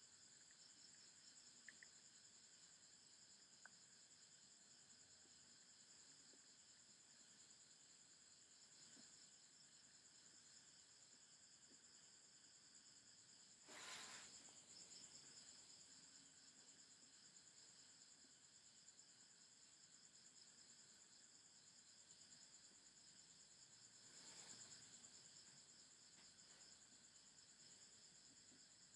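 Near silence except for the faint, steady, high-pitched chirring of crickets, with a brief soft rush of noise about halfway through and another near the end.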